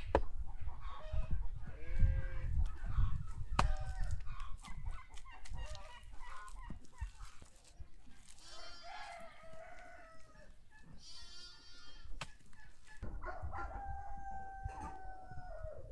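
Farmyard chickens calling: short clucks and calls through the first part, and near the end a rooster crowing with one long held note. A few sharp knocks sound in the first seconds.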